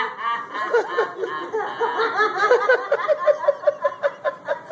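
A person laughing in a long run of short, quick giggles, speeding up to about six pulses a second in the second half. This is the ecstatic 'holy laughter' of a charismatic revival meeting.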